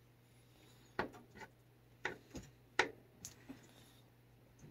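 Light, sharp clicks and knocks, about eight in irregular groups, from a wooden cat-toy stick being worked against a cat that is biting the plush toy on its end.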